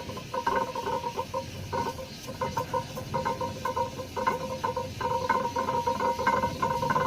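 Cast iron air-compressor cylinder head being lapped flat by hand on wet 280-grit sandpaper over a marble plate, rubbing in quick repeated back-and-forth strokes.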